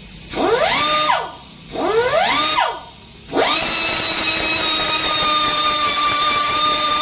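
Air-powered buffing tool, fed by a shop air hose, buffing the inner liner of a tubeless scooter tyre around the puncture to clean it for a patch. It whines up to speed and winds down twice, each time for about a second, then from about three seconds in runs steadily with a high whine.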